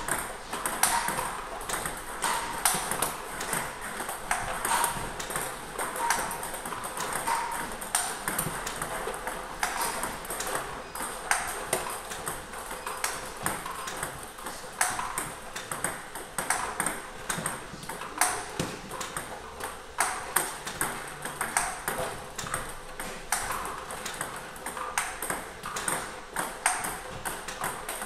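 Table tennis ball clicking over and over as a ball machine feeds backspin balls. Each ball bounces on the table and is struck with a racket faced with Nittaku Kyohyo Pro 3 Turbo Blue rubber, giving a steady series of sharp ticks with a louder hit every second or two.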